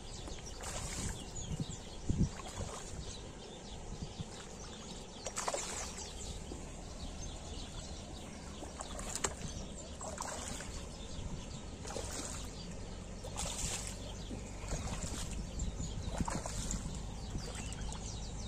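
Hooked tilapia splashing at the water's surface while being played in, several short splashes spread over the seconds.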